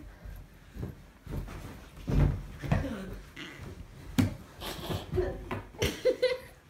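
Two children play-wrestling on a sofa: bodies thudding and scuffling on the cushions, with grunts and short cries near the end. The loudest thumps come about two and four seconds in.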